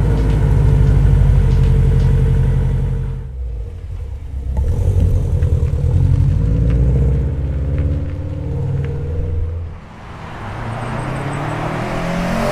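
Subaru WRX/STI turbocharged flat-four running through an AWE catback exhaust, a low, deep exhaust note. It drops off briefly about three seconds in, comes back, dips again near the ten-second mark, then climbs toward the end.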